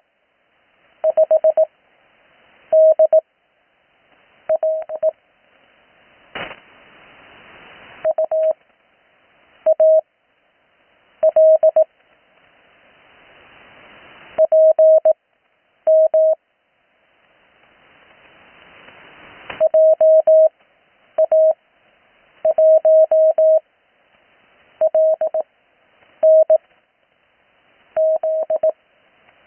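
Slow Morse code (CW) on an amateur radio: a steady mid-pitched tone keyed into short and long elements, sent as separate characters with pauses of a second or more between them. Hiss swells in some of the gaps between characters.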